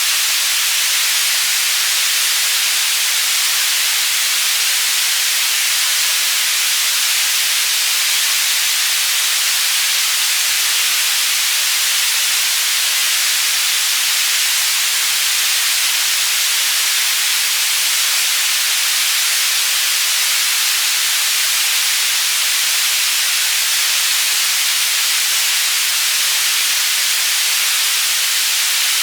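Synthetic white noise panning from side to side: a steady, even hiss, strongest in the upper frequencies.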